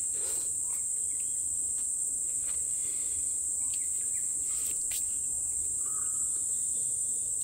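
Crickets chirping in a steady high-pitched drone, with a few faint clicks and knocks.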